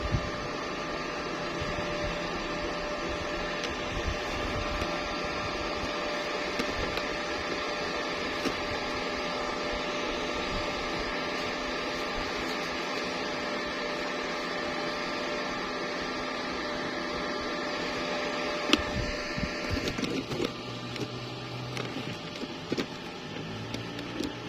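Stick welding arc crackling and hissing steadily, with scattered pops. It stops about 20 seconds in, leaving a low hum.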